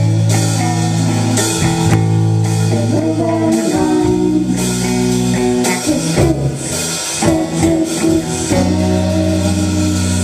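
Live rock band playing electric guitar, bass guitar and drum kit. Long held chords change every second or two under drum and cymbal hits.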